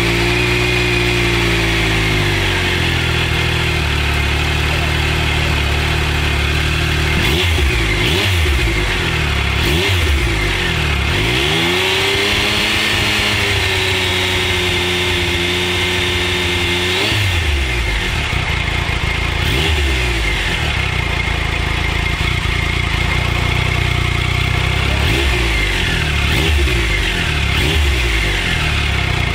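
2015 Triumph Trophy 1215 SE's inline three-cylinder engine running on its stock exhaust just after a cold start. The idle drops about two seconds in, then the throttle is blipped several times, with one rev held for a few seconds near the middle.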